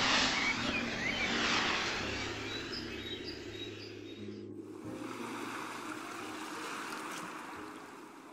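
Outdoor ambience with birds chirping over a steady hiss. About four and a half seconds in it cuts to a steady rush of sea waves that fades out near the end.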